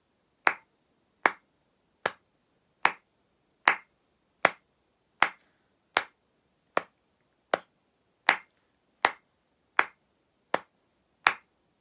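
One person clapping hands to a steady beat: about fifteen sharp, even claps, one every three-quarters of a second.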